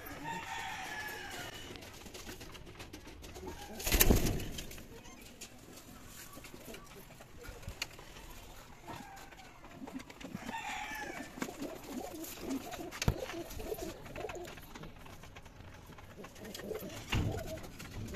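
Domestic pigeons cooing, with a loud knock about four seconds in and a few lighter knocks later.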